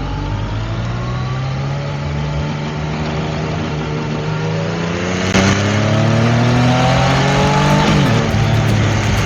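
Yamaha Tracer 900 GT's inline-three engine accelerating under load, its pitch climbing steadily and getting louder about halfway through. Near the end the pitch drops suddenly, as at an upshift, and then holds lower.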